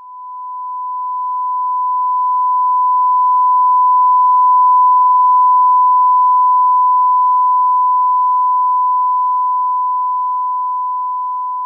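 A single steady, pure electronic tone at about 1 kHz with no change in pitch. It swells up over the first few seconds and then slowly fades toward the end.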